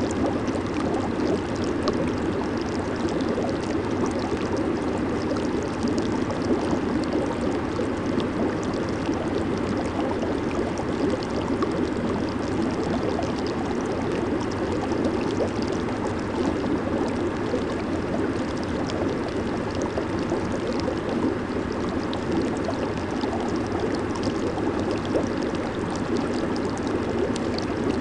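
Hot-tub water churning steadily under the jets, a constant bubbling rush with fine fizzing from the bursting bubbles.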